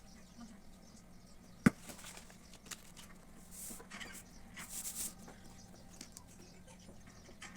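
Handling noises: a few short soft rustles and scrapes, with one sharp tap or knock about a second and a half in, over a faint steady hum.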